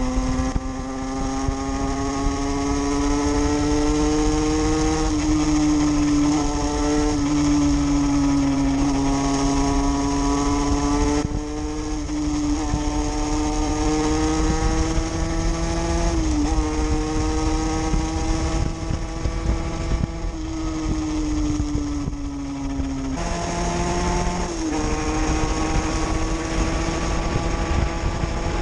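50cc two-stroke dirt bike engine running at high revs while riding, its pitch creeping up and then dropping briefly at several gear changes, with one sudden step up in pitch about two-thirds of the way through.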